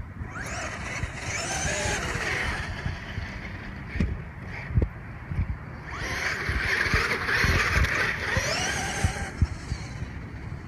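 Traxxas X-Maxx RC monster truck's electric motor and drivetrain whining in two runs, the pitch rising and falling with the throttle, over scattered low knocks. The differential runs quietly now that its seized ring-gear bearing has been dealt with.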